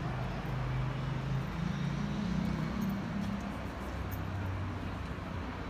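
City street traffic: a steady hum of passing vehicles with a low engine drone that rises and falls in pitch.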